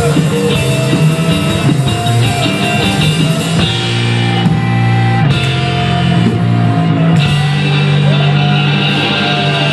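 A live band playing rock: drum kit, electric guitar and violin over sustained low notes, with a sliding note near the end.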